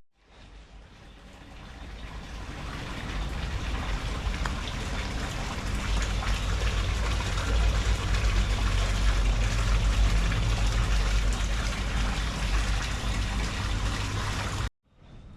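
Heavy rain in a storm, a dense hiss, with strong wind buffeting the microphone as a low rumble. It fades in after a sudden cut, builds over the first few seconds, and cuts off abruptly near the end.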